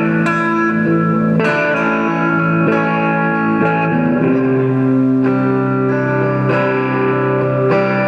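Electric guitar music: sustained, ringing notes and chords, with a new chord struck every second or so.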